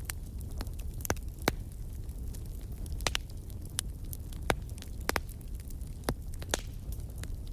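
Wood fire crackling in a fireplace: irregular sharp pops and snaps, about ten in all, some louder than others, over a steady low rumble of the burning fire.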